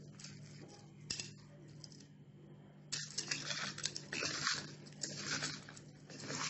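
Hands squeezing and tossing salted slices of bitter gourd in a bowl, a wet crunchy rustling of the slices. It comes once briefly about a second in, then runs densely from about three seconds in. The gourd is being rubbed with salt to draw out its bitterness.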